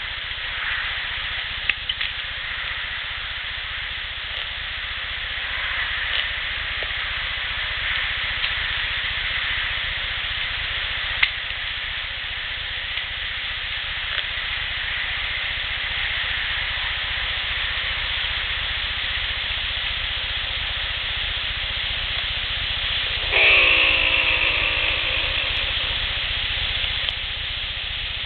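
Steady hiss of background noise with a few faint clicks, and one loud drawn-out call, slightly falling in pitch, about 23 seconds in that fades over about two seconds.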